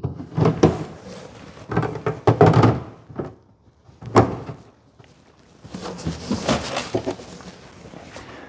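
Hollow plastic spray tank and its fill lids being handled in a cardboard box: a few separate thunks and bumps, then a longer scraping rustle of cardboard and foam about six seconds in as the tank is lifted out.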